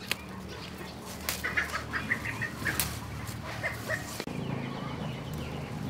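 Chickens clucking in short repeated notes, mixed with sharp snaps and rustles as leafy herb stems are picked by hand.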